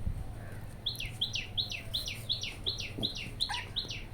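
Small bird chirping over and over, about three short chirps a second, each dropping in pitch. The chirping starts about a second in.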